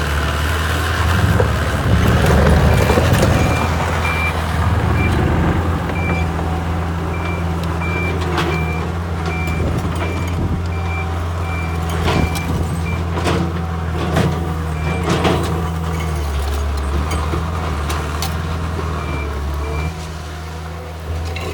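Diesel engine of a TL130 skid steer loader running steadily, a little louder for a couple of seconds near the start. Its reverse alarm beeps about every 0.6 seconds through the first half, stops, then starts again briefly near the end. A few sharp knocks come in the middle.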